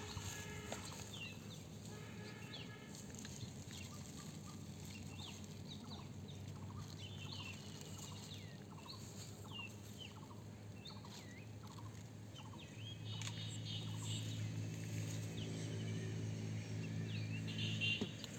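Birds calling with short repeated chirps throughout, possibly domestic fowl. From about two-thirds of the way through, a low steady motor hum joins in and cuts off sharply near the end.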